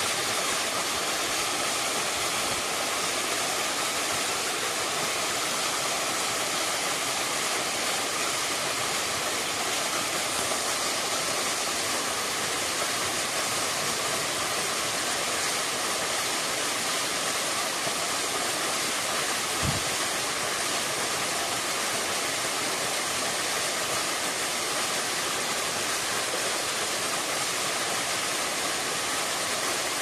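Small waterfall cascading over mossy rocks into a shallow stream: a steady rush of falling water. One brief low bump about two-thirds of the way through.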